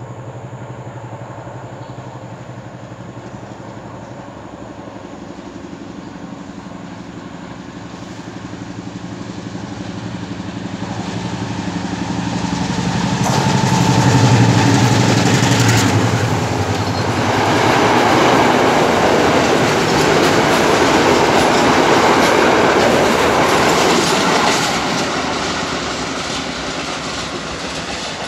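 Diesel locomotive hauling a passenger train approaching and passing close by, its engine sound building to a peak about halfway through. Then the noise of the carriages' wheels on the rails as the coaches roll past, fading as the train moves away near the end.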